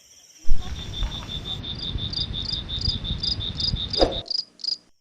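Crickets chirping in a steady pulsed trill, about five chirps a second, over a low rumbling noise. The sound starts suddenly about half a second in, with a knock near the end, and cuts off abruptly.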